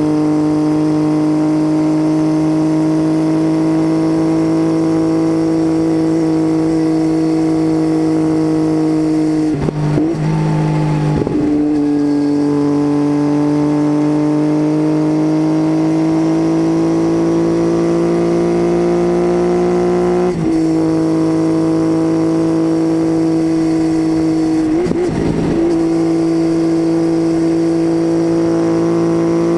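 Triumph Tiger 800's inline-triple engine under way through an unbaffled titanium Leo Vince exhaust, a steady drone picked up from under the seat with no wind noise. The note slowly climbs. About ten seconds in it breaks briefly and comes back lower before climbing again, with shorter breaks around twenty and twenty-five seconds in.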